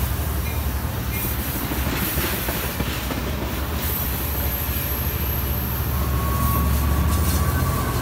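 Passenger train cars rolling past at close range: a steady low rumble of wheels on rail, with a thin wheel squeal coming in over the last couple of seconds.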